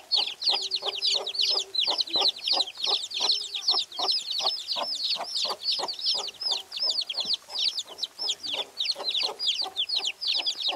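A brood of chicken chicks peeping continuously, many high, downward-sliding peeps overlapping, while a mother hen clucks among them in a steady run of short, low clucks, about four a second.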